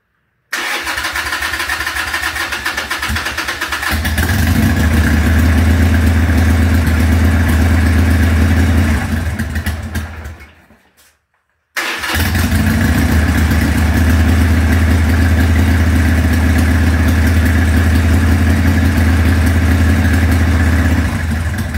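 A 1993 Harley-Davidson Sportster's air-cooled Evolution V-twin is cold-started on choke. It starts up suddenly, grows louder and steadier after a few seconds, then dies out about ten seconds in. It is restarted at once and settles into a steady, loud idle.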